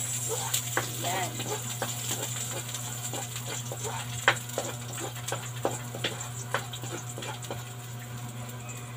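Chopped garlic and onion frying in oil in a wok, a steady sizzle, with the spatula scraping and knocking against the pan in irregular sharp clicks as they are stirred.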